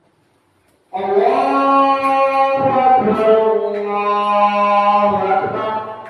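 A voice chanting a slow melody in long held notes, with reverberation, starting abruptly about a second in and fading out near the end.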